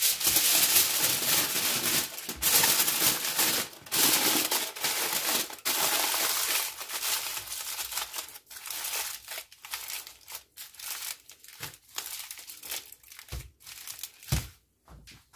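Aluminium foil being folded and scrunched shut around a chicken-and-vegetable filling by gloved hands, crinkling steadily for the first several seconds, then in short, separate crinkles with pauses between.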